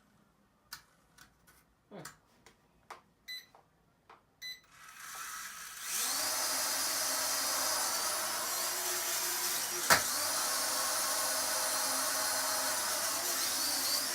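A few light plastic clicks and taps, then the Protocol Dronium Zero toy quadcopter's small motors and propellers spin up about five seconds in and run on as a steady high whine, with one sharp knock about ten seconds in. The rear two motors are running much faster than the front two, because two propellers are fitted on the wrong sides and push air upward.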